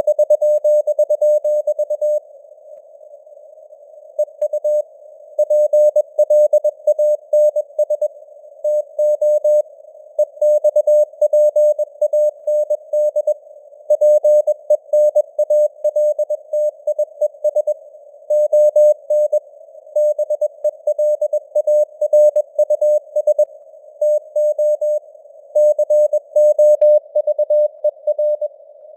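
Morse code (CW) sent at 21 words per minute as a keyed tone of about 600 Hz, in short dots and dashes, with simulated radio noise hissing between the characters. There is a pause of about two seconds near the start, between words.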